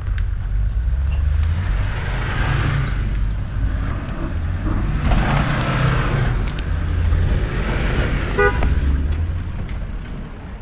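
Land Rover Discovery's engine pulling in repeated surges as the 4x4 crawls up a steep, rocky, mossy slope off-road, with a brief high-pitched squeal about three seconds in.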